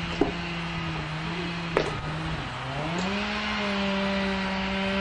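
Skid loader engine running steadily, then revving up partway through and holding the higher speed, with a few sharp knocks.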